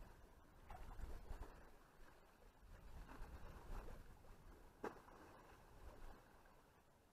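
Near silence: faint water sloshing and splashing around waders in calm sea, with one sharp click about five seconds in.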